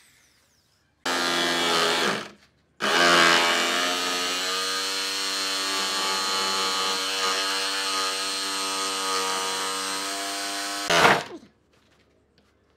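Electric power tool motor running: a short run of about a second, then after a brief pause a steady run of about eight seconds that ends with a short louder burst before it cuts off.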